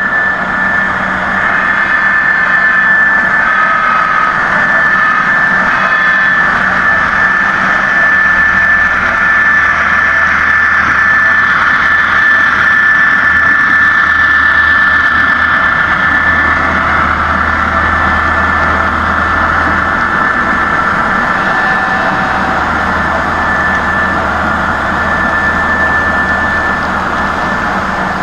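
HO scale model diesel locomotive and coal hopper cars rolling past close by: a steady mechanical running sound with a high steady whine and a low hum that comes and goes.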